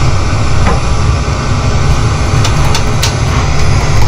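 Steady low engine rumble in an aircraft cockpit during slow taxiing, with a few light clicks a little past halfway through.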